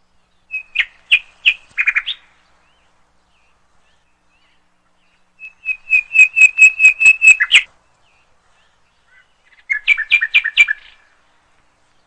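A small songbird calling in three quick bouts of short chirps on an even pitch, the middle bout the longest at about two seconds, with about five notes a second.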